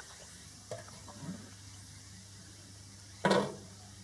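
Low steady hum with a few light clicks, and a single brief knock a little after three seconds in, the loudest sound.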